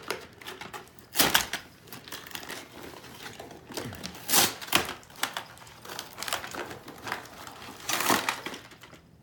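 Toy packaging being worked at by hand: plastic crinkling and rustling in irregular crackles, with louder bursts about a second in, near the middle and near the end, as the figure is pried free.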